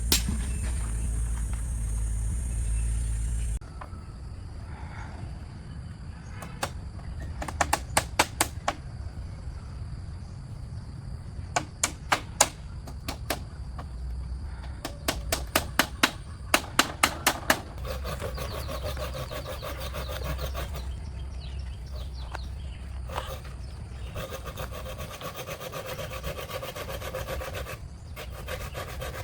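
Bamboo or wood being worked with hand tools: quick runs of sharp knocks, then two long stretches of rasping, sawing-like strokes.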